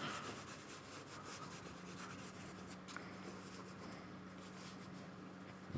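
Paintbrush strokes brushing and scrubbing watercolour and gouache onto paper, heard faintly as a run of soft, uneven rubbing strokes. A faint steady low hum runs underneath from about a second and a half in.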